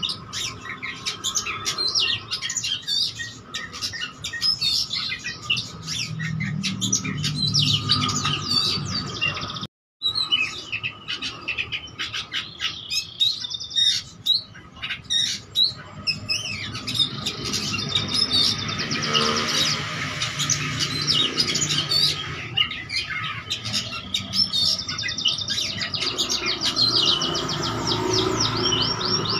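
Oriental magpie-robin singing almost without pause in rapid, varied phrases and trills, full of mimicked notes. The sound cuts out completely for a moment just before ten seconds in.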